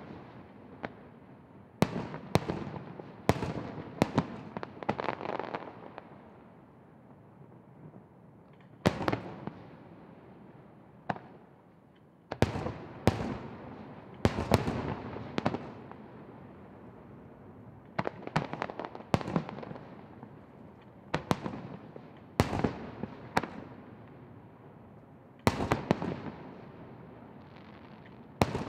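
Aerial firework shells bursting one after another, about twenty sharp bangs at uneven intervals, each trailing off in a long rumbling tail. There is a lull of a few seconds about a quarter of the way in.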